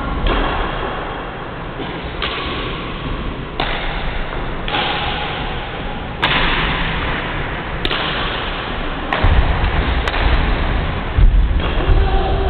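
Badminton rally on a wooden-floored court: rackets hitting the shuttlecock and players' feet thudding on the floor, with the heaviest thumps about nine and eleven seconds in.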